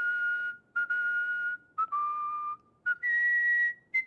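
A person whistling a short tune: a string of clear held notes with brief gaps, dipping lower in the middle and stepping higher near the end.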